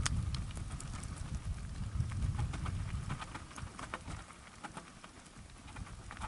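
Mountain bike rolling downhill over a loose stony track: a low wind rumble on the microphone with scattered clicks and rattles of the tyres on stones and the bike jolting. The rumble eases off about four and a half seconds in, then builds again near the end.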